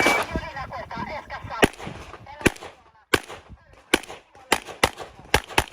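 Handgun shots fired during a practical shooting stage: about eight sharp single shots at an uneven pace, some in quick pairs, beginning a little over a second and a half in.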